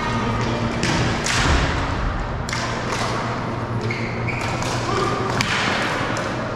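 Floor hockey (hockey cosom) play: sticks knocking and clacking and scattered thuds of play, over a steady hubbub of the game.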